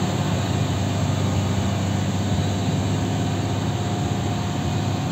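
Heavy truck's diesel engine running steadily under the driver's foot, heard from inside the cab, as the truck fails to get moving on ice.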